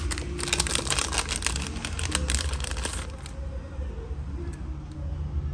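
Crinkling and rustling of a foil anti-static bag as a replacement phone battery is pulled out of it. The crackle stops about three seconds in, leaving a steady low hum.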